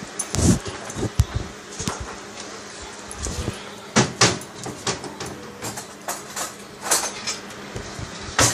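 Irregular household knocks and clatters, a string of sharp strikes with louder ones about four seconds in, around seven seconds, and near the end.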